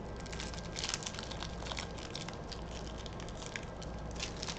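Basketball trading cards being handled and flipped through, making many small irregular clicks and rustles.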